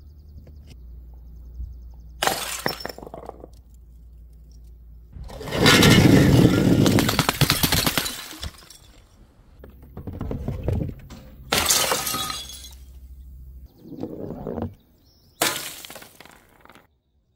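A series of about five separate crashes of glass smashing and shattering on stone paving. The loudest and longest, about three seconds, comes a little over five seconds in.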